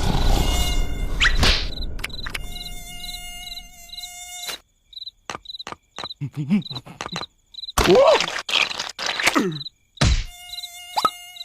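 Cartoon sound effects. A loud noisy blast comes first, then a high, insect-like buzz pulsing about three times a second, broken by sharp clicks, short swooping squeaky cartoon voices and a loud hit.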